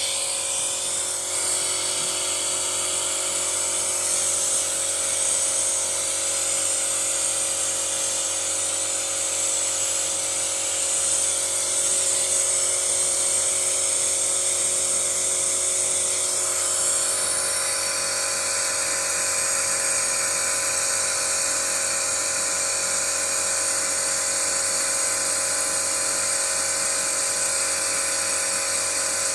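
Running petrol car engine heard close up in the engine bay: a steady high-pitched whine and hiss while carbon cleaner fluid is fed into the intake manifold through a hose. The tone shifts slightly about sixteen seconds in.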